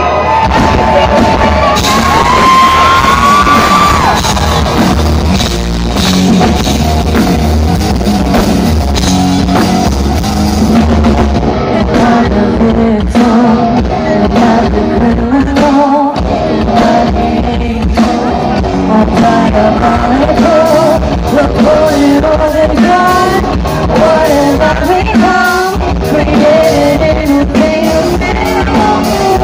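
A rock band playing live, with a woman singing lead over bass guitar and drums, loud and steady throughout.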